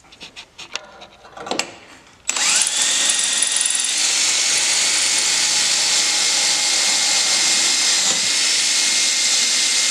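Power drill running steadily with a whine, drilling holes through a metal brace plate on a snowmobile's bulkhead. It starts about two seconds in, after a few light clicks.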